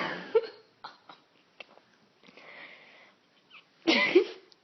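A woman passed out drunk, snoring loudly in her sleep: two loud snores about four seconds apart, with a softer breath in between.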